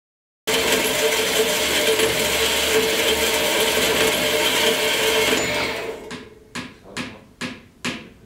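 Metal-cutting power saw running steadily through a steel bar, starting about half a second in and dying away near the six-second mark. Then a run of about five sharp knocks, roughly two a second.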